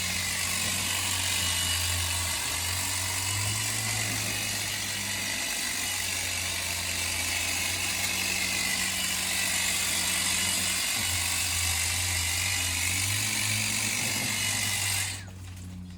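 Ego cordless telescopic hedge trimmer running and cutting through hedge. Its low motor hum shifts up and down in pitch as the blades work, and it stops suddenly about fifteen seconds in.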